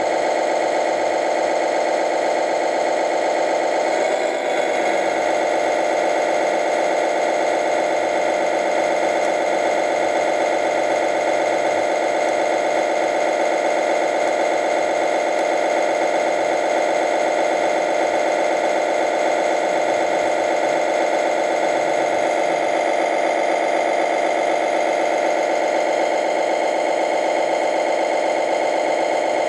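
RC fire truck's sound module playing a diesel engine idling: a steady, even running sound with a fine regular pulse, briefly wavering about four seconds in.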